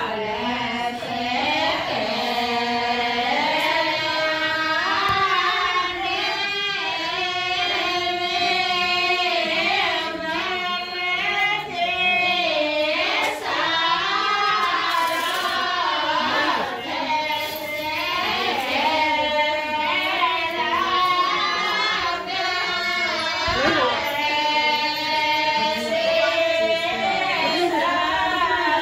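Women singing a traditional Rajasthani wedding song, one continuous melody with long held notes.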